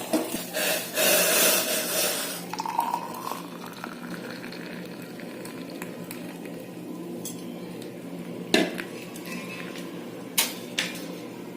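Pot, strainer and cutlery clinking and scraping as a boiled herbal decoction is strained off the stove. The handling is busiest in the first couple of seconds, with a few sharp metal clinks in the second half.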